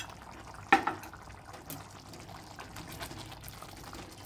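Melted ghee spooned and poured into thick carrot halwa simmering in a kadai, with one sharp knock of the spoon against metal under a second in, then faint bubbling and ladle stirring.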